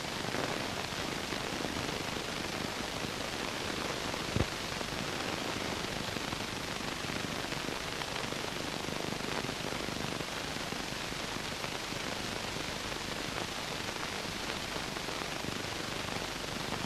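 Steady recording hiss with faint crackle and no narration. One sharp click comes about four and a half seconds in.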